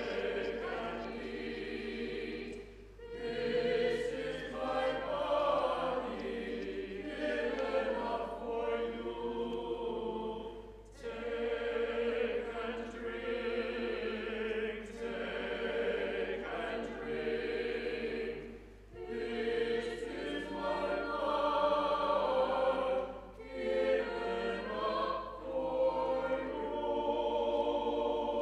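Church choir singing in long sustained phrases, with brief pauses for breath between phrases.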